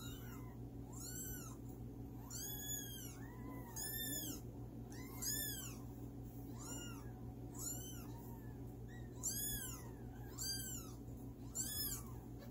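Eight-day-old kittens mewing over and over: short, high-pitched mews that rise and fall, about one a second.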